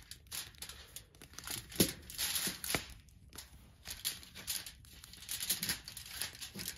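Knife cutting strawberries by hand: irregular clicks and knocks of the blade, with crinkly rustling between the cuts.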